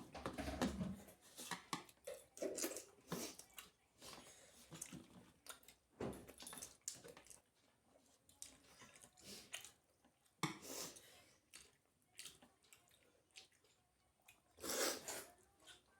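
A person chewing and eating soft flatbread with dal and curry by hand: irregular wet mouth clicks and smacks, with a few louder bursts about a second in, about six seconds in, around ten and a half seconds and near the end.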